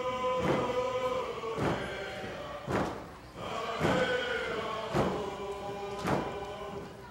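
A group of men singing a Northwest Coast Native song in unison while beating round rawhide hand drums in a slow, even beat about once a second. The voices hold long notes and drop away briefly about three seconds in.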